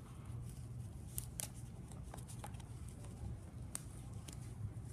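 Quiet handling sounds as suspension lines are stowed in a rubber band on a nylon parachute deployment bag: a scatter of small clicks and snaps from the band and lines, over a steady low hum.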